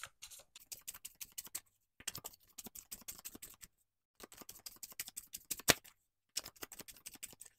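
A deck of tarot cards shuffled by hand: rapid papery flicks of cards slipping through the fingers, in four short bouts with brief pauses between.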